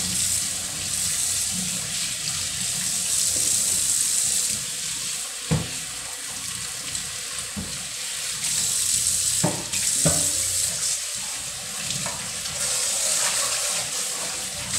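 Kitchen faucet running steadily into a stainless steel sink as dishes and a plastic cutting board are rinsed under the stream, with a few sharp knocks of items handled against the sink.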